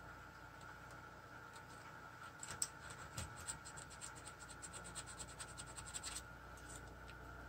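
Quick, light scratching strokes, about eight to ten a second, starting a couple of seconds in and stopping a little over a second before the end: the small leaf-switch contacts of a cassette deck's tape mechanism being scrubbed clean. A faint steady whine runs underneath.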